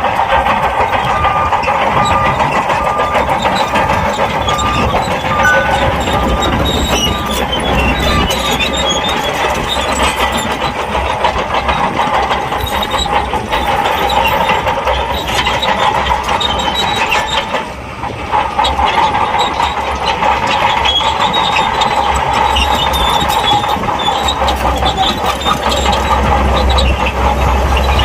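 SHANTUI crawler bulldozer working in sand: its diesel engine runs steadily under load, with frequent metallic clanking. The engine eases off briefly about 18 seconds in, then picks up again.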